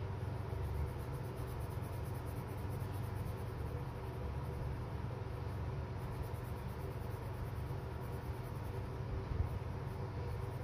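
Deli Arte Nuevo watercolour pencil shading back and forth on paper: a soft, steady scratching over a low background rumble.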